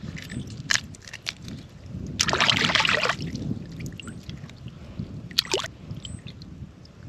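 Water sloshing and splashing, with one louder splash lasting about a second that starts a couple of seconds in and a shorter one about five and a half seconds in, over a low rumble of wind on the microphone.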